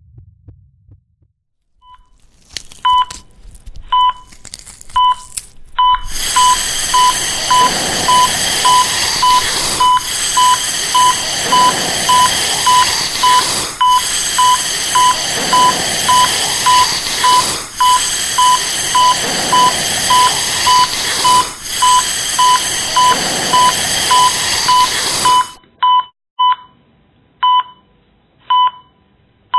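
Electronic beep at one steady pitch, repeating. It starts sparse, settles to about two beeps a second, then turns sparse and uneven near the end. From about six seconds in until near the end, a loud, even hiss-like noise runs under the beeps and cuts off suddenly.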